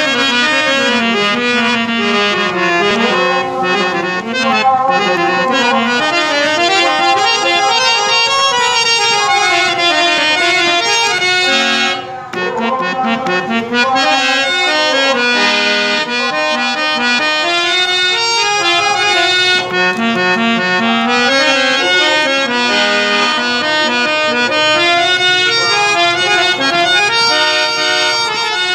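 Harmonium playing a melody on its sustained reeds, with a brief drop in level about twelve seconds in.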